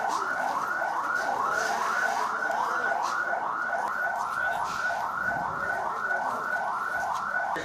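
Ambulance siren sounding in quick rising sweeps, about two and a half a second, that stop near the end.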